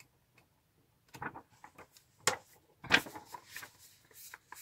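Handling sounds from a paper booklet and box packaging: scattered rustling with two sharp taps, about two and three seconds in.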